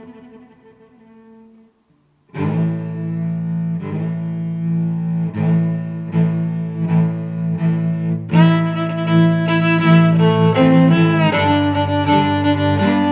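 Background music: one piece fades out and stops about two seconds in, then after a brief gap new music with held low, string-like notes begins and grows fuller with more instruments a little past eight seconds.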